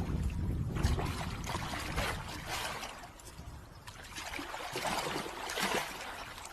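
Water splashing and trickling in uneven bursts, with a low rumble that fades out about a second in.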